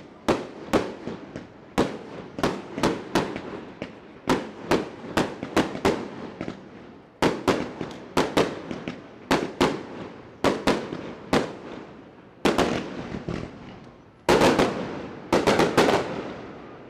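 Aerial fireworks going off close by: a rapid run of sharp bangs, several a second, each trailing off briefly, thickening into a dense barrage near the end.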